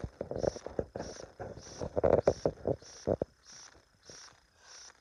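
A run of sharp knocks and thuds in the first three seconds or so, over a short high chirp that repeats evenly about every 0.6 s.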